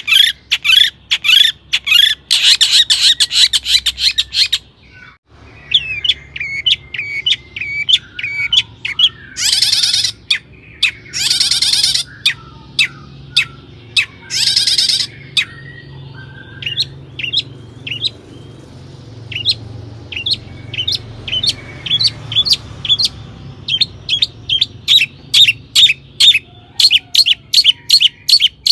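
Long-tailed shrike singing: rapid runs of sharp, high chipping notes broken by several harsh, rasping bursts about a second long, with a short break about five seconds in.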